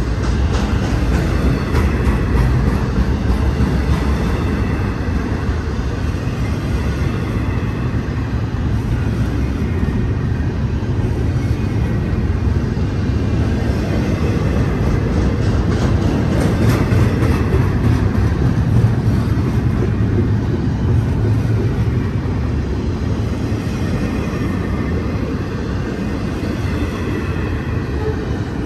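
Double-stack intermodal well cars rolling past close by: a steady heavy rumble of steel wheels on rail, with short spells of clattering around a second in and again about sixteen seconds in.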